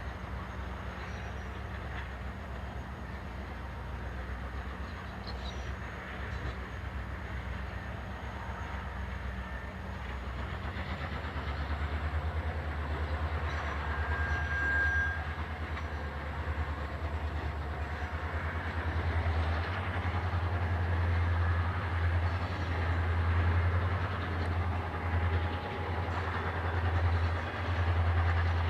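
EMD two-stroke diesel locomotives (GM and ALF class) working hard under load hauling a heavy grain train, a deep pulsing engine rumble with some wheel and wagon noise. It grows louder from about a third of the way in.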